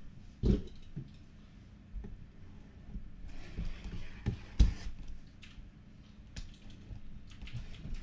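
Cardboard hobby boxes of baseball cards being slid out of their case and handled: several sharp knocks of boxes against each other and the table, two of them close together about halfway through, with sliding and rustling in between.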